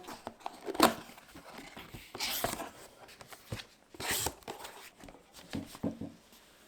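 Handling noises: a loud knock about a second in among scattered clicks, and two short bursts of rustling or scraping around the middle.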